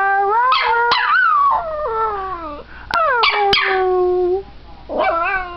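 Small long-haired dog howling in three drawn-out, sliding yowls, its 'talking' attempt at 'I love you' when coaxed: a long wavering one at the start, a falling one about three seconds in, and a short one near the end, with two sharp clicks in between.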